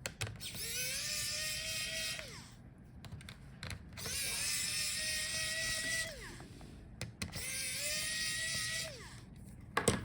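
Electric screwdriver whirring in three runs of about one to two seconds each, spinning up, holding steady and winding down, as it backs out small laptop screws. A few sharp clicks near the end.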